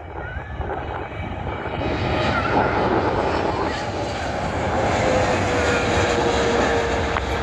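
Jet airliner engines passing close by, growing louder about two seconds in, with a whine that slides down in pitch near the end.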